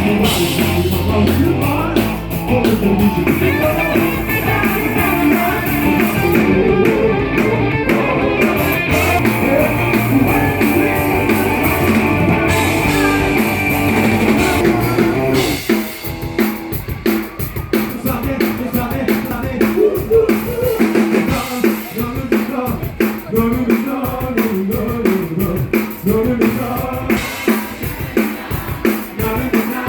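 Live rock band playing an instrumental passage on drum kit and guitar. About halfway through the deep bass drops away and the playing becomes sparser and more rhythmic.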